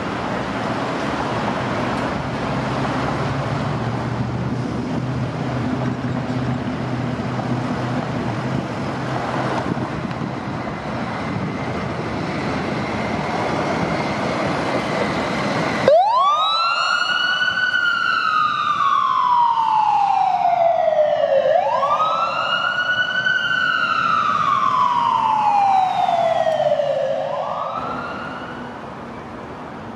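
Electronic wail siren of a Seattle Fire Department Ford box ambulance (aid unit). It switches on suddenly about halfway through and sweeps up quickly, then falls slowly, one cycle about every five and a half seconds, twice. A third rise is cut short near the end. Before the siren, an engine runs with steady street noise.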